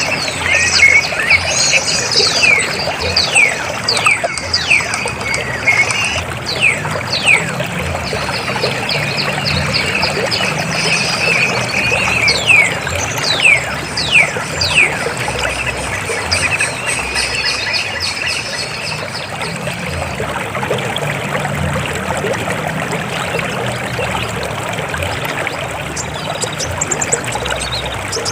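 River water flowing steadily, with a bird calling in quick downward-sliding whistles, many in a row during the first half.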